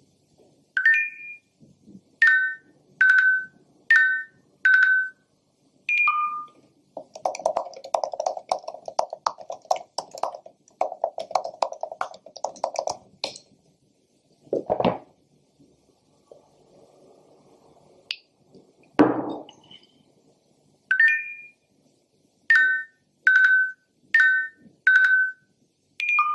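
Two runs of short electronic beeps, five or six in each at about one a second, the last beep of each run lower in pitch. Between the runs a ringtone-like electronic tune pulses for several seconds, and there are two single knocks.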